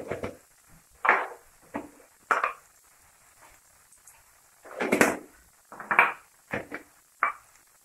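Spice containers and their lids being handled while seasoning a pan of vegetables: a series of irregular clinks, knocks and short rattles, loudest about five seconds in.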